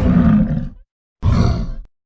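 Creature sound effect for an adult Suko, the young kaiju ape, grown up: a deep, gruff roar that ends just under a second in. A second, shorter roar follows about a second in and cuts off sharply.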